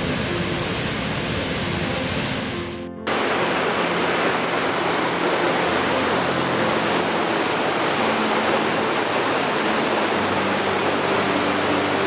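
Steady rush of a large waterfall; about three seconds in it cuts abruptly to a brighter, hissier rush of water cascading over rocks in a stream. Soft held music notes sound faintly underneath.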